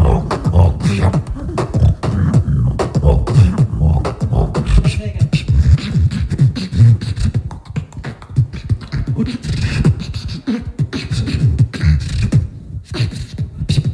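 Beatboxing into a cupped handheld microphone: a fast, dense rhythm of vocal bass kicks and snare and hi-hat clicks, with a brief break shortly before the end.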